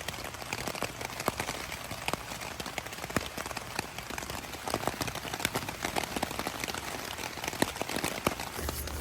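Steady rain, with many separate drops striking close by, and a low steady hum coming in near the end.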